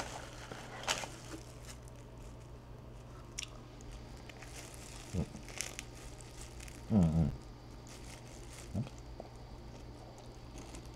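A person biting into and chewing avocado toast, with a few crisp crunches and small clicks, and a short hummed voice sound about seven seconds in. A steady low hum runs underneath.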